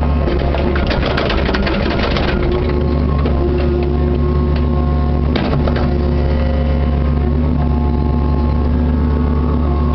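Kubota KX61-3 mini excavator's three-cylinder diesel engine running steadily, heard from inside the cab while the boom and bucket dig topsoil. A burst of rattling and clatter fills the first couple of seconds, and a sharp knock comes about five and a half seconds in.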